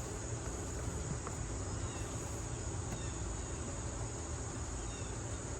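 Crickets trilling steadily, high-pitched, over a low background rumble.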